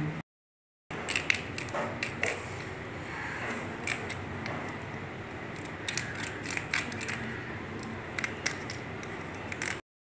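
Scissor point being twisted into a plastic bottle cap to bore a hole: irregular small clicks and scrapes of metal on plastic. The sound cuts out completely for a moment near the start and again near the end.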